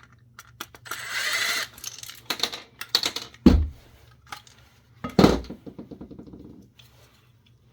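Small power screwdriver whirring briefly about a second in, then clicks and two loud thumps as screws and metal parts of the radio are handled.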